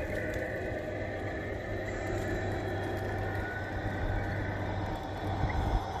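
1:14 scale radio-controlled truck and trailer running on asphalt: a steady low hum with a noisy rolling sound underneath.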